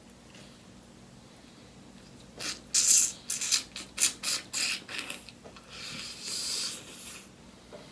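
Crunchy chewing of crispy fried chicken close to the microphone: a quick run of sharp crunches starting about two and a half seconds in, followed by a softer rustling hiss.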